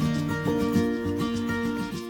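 Background music: acoustic guitar plucking a melody, fading near the end.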